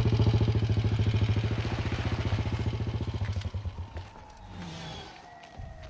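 Motorcycle engine running with a fast, even putter, loud at first and dying away about three and a half seconds in. A faint tone then slides slowly downward.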